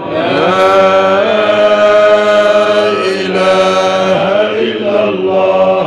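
A man's voice chanting a slow, drawn-out Sufi dhikr line, holding long notes with slow slides between them; the voice slides up into the first note and dips briefly about four seconds in.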